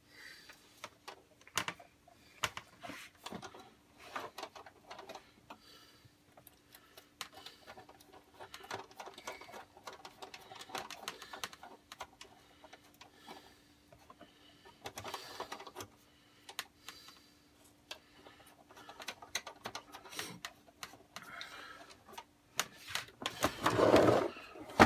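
Handling noise of speaker wire being worked at an amplifier's rear speaker terminals: irregular clicks, taps and rustles, over a faint steady hum. A louder rubbing burst comes near the end.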